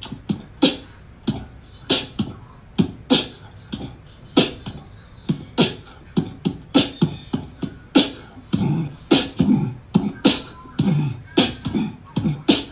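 A cat hissing and spitting in short sharp bursts at irregular intervals, about two a second, with lower sounds between the bursts in the second half.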